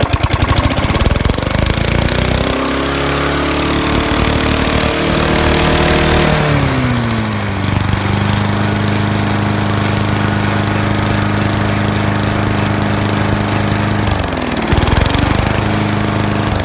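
Craftsman push mower's Tecumseh engine running. It climbs in speed over the first couple of seconds and holds high, then drops about six and a half seconds in to a lower steady speed. Near the end it sags briefly and picks back up.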